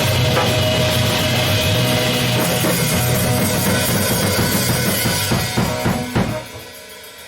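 Live rock band playing the instrumental end of a song, with a drum kit, bass drum and cymbals over a full band. A few last separate drum hits come about five to six seconds in, then the music dies away.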